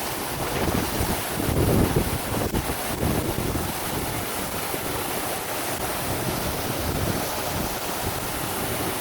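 Waterfall rushing steadily, with wind buffeting the microphone, strongest about two seconds in.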